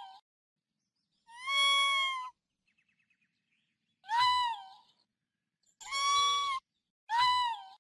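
Raccoon calling: a series of high, whining mew-like cries, about five, each under a second long with a pitch that rises and falls away, separated by silence.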